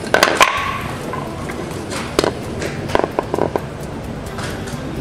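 Knocks and clatter of a heavy rubber-and-metal in-road warning light housing being handled and set against a concrete floor. There is a cluster of knocks with a short metallic ring near the start, a single knock a little after two seconds, and a quick run of three or four knocks about three seconds in.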